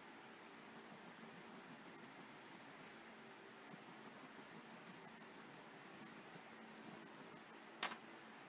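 Faint scratching of a Prismacolor colored pencil in quick, repeated short strokes on UART sanded paper. A single sharp click near the end.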